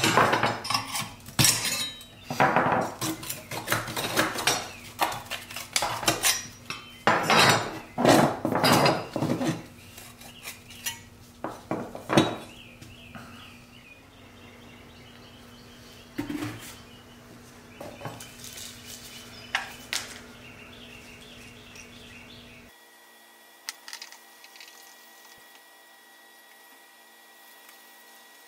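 Pressed-steel toy truck parts (cab, frame rails and bed of a 1940s Buddy L dump truck) clanking and clinking as they are handled and set down on a workbench, in a dense run of knocks for the first ten seconds or so, then only occasional lighter knocks and scrapes.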